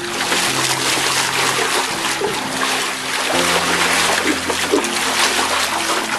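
Water splashing and trickling without a break, over background music that holds low notes.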